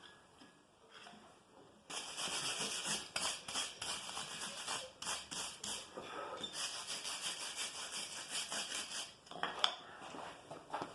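Quick repeated scrubbing strokes, several a second, starting about two seconds in and stopping a couple of seconds before the end, followed by a few sharp clicks.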